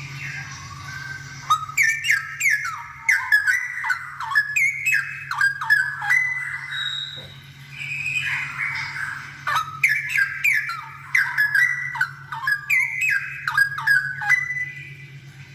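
Straw-headed bulbul (cucak rowo) singing loud, rapid runs of quick sliding notes in two bouts, with a short break about halfway. A steady low hum runs underneath.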